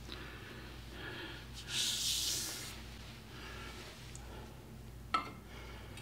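Quiet shop with a steady low hum. A short rush of hiss comes about two seconds in, and a single sharp click about five seconds in as a precision machinist's level is placed on the steel magnetic chuck of a surface grinder.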